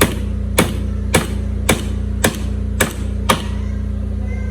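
Seven evenly paced hammer blows, about two a second, stopping about three and a half seconds in, over a steady low hum.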